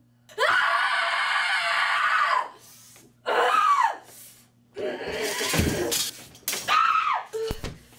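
A young woman screaming four times in a row: one long scream of about two seconds, then three shorter ones, the third rougher and noisier. These are practice screams, pitched high and then falling away at the end of each. A brief low thud comes near the end.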